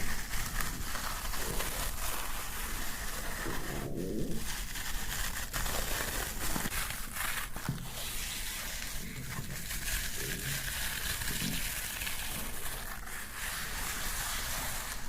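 A man's stomach growling: low, irregular gurgles that come and go, strongest about four seconds in, over a steady hiss from a sensitive microphone.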